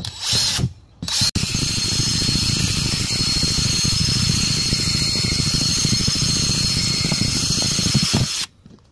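Cordless drill boring holes through a plastic storage tote lid. Two short bursts of the motor, then a long steady run with a high whine that cuts off near the end.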